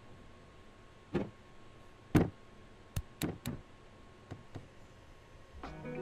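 Hands pressing and patting dough flat into a plastic tub: a string of soft knocks, some single and some in quick twos and threes, as the dough is pushed against the tub's bottom. Background music comes in near the end.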